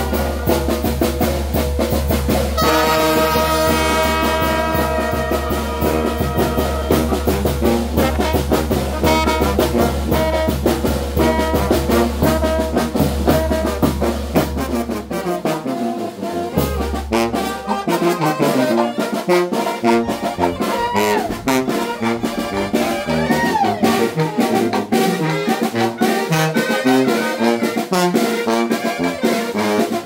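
Oaxacan Mixtec brass band (banda de viento) playing a chilena: trumpets, trombones and alto horns over a sousaphone bass line, with bass drum and cymbals keeping a steady beat.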